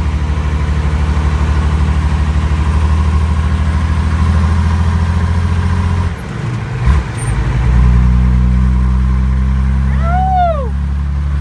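Diesel engine of a 1985 Ford F-14000 truck idling through a straight-pipe exhaust with no muffler: a loud, fast, even low pulse. About six seconds in the sound dips and stumbles briefly, then comes back a little louder.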